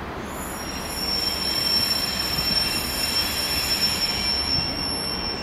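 Train wheels squealing on curved track: a steady high-pitched squeal with several fainter tones around it, over a low rumble. It grows louder about a second in and stops at the end.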